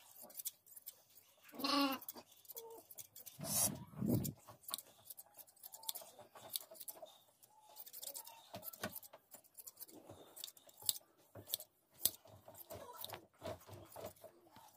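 Scissors snipping through a sheep's wool in quick, repeated crisp cuts during traditional hand shearing. A sheep bleats briefly about two seconds in, and there is a dull thump around four seconds in.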